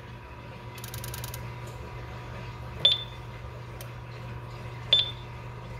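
Honeywell alarm panel keypad giving two short high beeps with a click as its keys are pressed, about two seconds apart, over a low steady hum.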